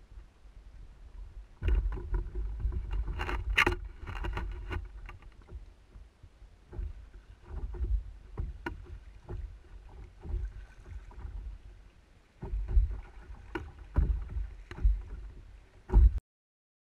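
A canoe being paddled: uneven splashing paddle strokes and water washing against the hull, with sharp knocks now and then. The sound cuts off suddenly near the end.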